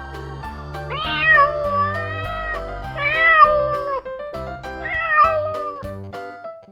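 Domestic cat meowing three times, each meow about a second long, over steady background music.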